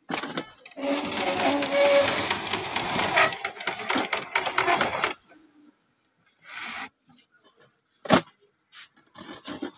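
Epson ink-tank inkjet printer running its mechanism with a fast rattling whir for about four seconds, then stopping. A single sharp click comes about eight seconds in.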